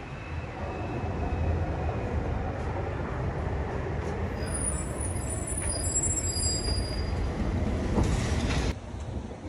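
Heavy street traffic rumbling past, with a high, thin squeal from about four to seven seconds in. The sound cuts off suddenly near the end.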